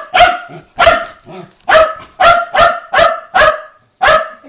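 Shetland sheepdog barking in a rapid series of short, high-pitched barks, about two a second: demanding barks in a tantrum over food.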